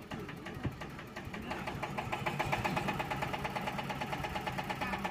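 Yanmar TS single-cylinder diesel engine powering a Hiab crane, running with a rapid, even chugging beat. It grows louder about a second and a half in, then holds steady.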